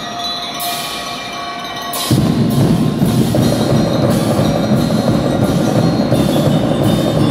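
Drum and lyre corps playing: bell lyres ring held, bell-like notes, then about two seconds in the drums come in loud with a regular beat under the lyres.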